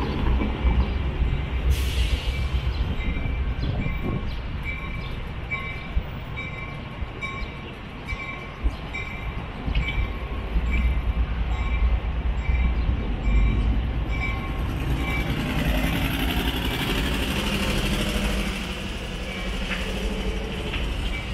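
Metra commuter train rolling over an elevated steel railway bridge with a steady low rumble. For the first half, a railroad grade-crossing bell dings in an even repeating rhythm. Later a hiss swells for a few seconds.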